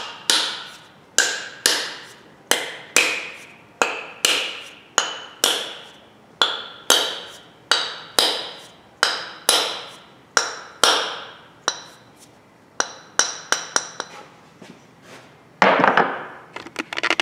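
Steady hammer blows, about two a second, each ringing briefly, driving a trimmed wooden wedge into the top of a hatchet handle in the eye of the head to spread and tighten it. The blows stop about three quarters of the way through, and a few lighter knocks follow near the end.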